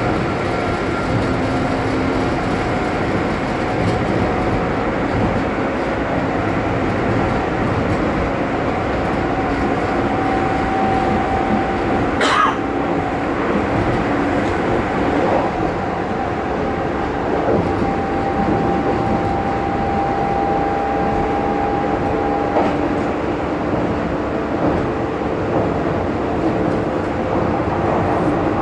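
Running noise of the NO.DO.KA electric train heard from inside: a steady rumble of wheels on rail with a steady motor hum, and one short sharp click about twelve seconds in.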